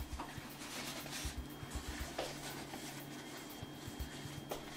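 Faint scuffing of a paper towel being folded and rubbed around the inside of a nonstick air fryer basket, with a few light taps, over a steady low hum.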